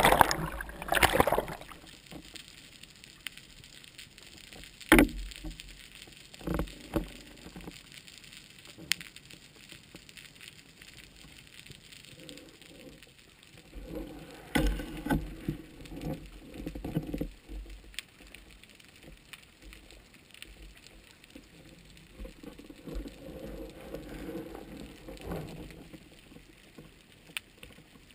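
Water splashing and sloshing over the camera as the spearfisher dives under, then the muffled quiet of underwater, heard through a GoPro's waterproof housing, with a few scattered sharp clicks and soft low rumbling spells.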